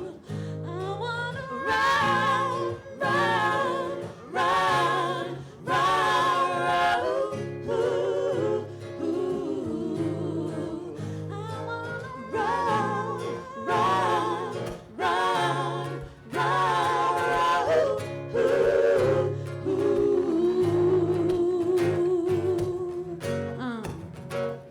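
A live vocal group singing in harmony, sustained notes with vibrato, over a steady low accompaniment.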